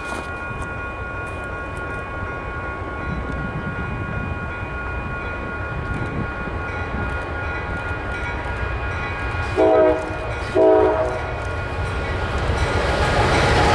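Diesel freight train led by a Norfolk Southern AC44C6M locomotive approaching: a low engine and wheel rumble that grows louder in the last seconds as the locomotives draw near, with two short horn blasts about ten seconds in.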